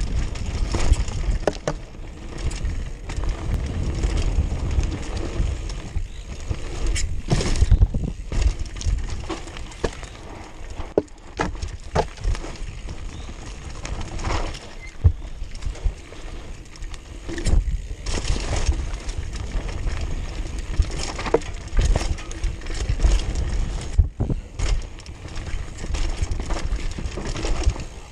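Mountain bike ridden fast down a dirt trail, heard from a camera on the bike or rider: wind rumbling on the microphone and tyres rolling over dirt, with frequent sharp knocks and rattles as the bike hits bumps.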